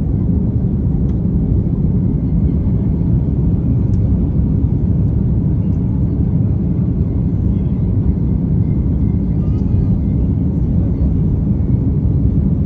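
Airliner on takeoff: a loud, steady low rumble of engines and rushing air that stays even throughout.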